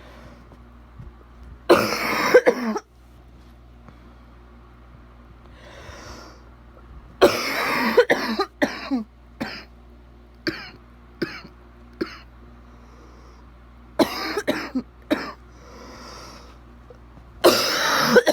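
A person's bad wet coughing, coming in about five harsh fits with strings of short single coughs between them and breaths drawn in during the pauses.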